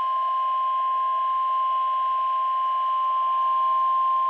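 NOAA Weather Radio 1050 Hz warning alarm tone: one long, steady, loud beep-like tone, the alert signal that comes before a severe thunderstorm warning message.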